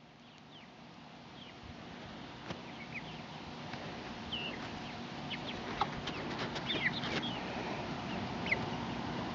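Young chickens peeping and chirping while they forage, short high calls scattered throughout over a low steady background, fading in over the first few seconds.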